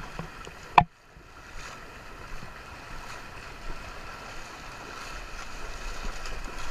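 Shallow surf washing and feet splashing through ankle-deep water, with wind on the microphone. A sharp knock or splash hits just under a second in and the sound drops out for a moment, then the water noise builds steadily toward the end.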